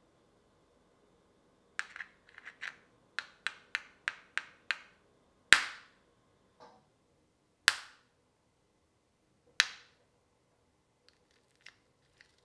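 Metal spoon tapping on the hard caramelized sugar top of a crème brûlée in a ceramic ramekin. It starts about two seconds in with a run of light taps, about three a second. Then come three sharp, loud cracks a couple of seconds apart as the caramel shell breaks, and a few faint ticks near the end.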